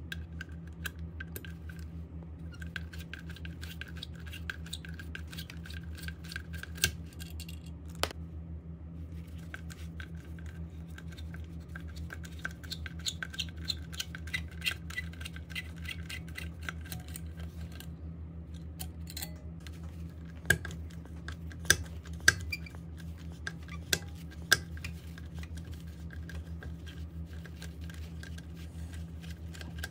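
Precision screwdriver turning small screws on a Mac Pro logic board: a run of light metallic clicks and scrapes, with a handful of sharper clicks about two-thirds of the way through. A steady low hum lies underneath.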